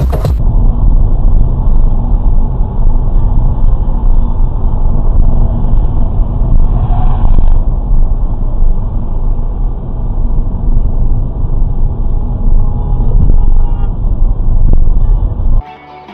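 Loud, steady rumble of a motor vehicle on the road, with a brief brighter sound about seven seconds in.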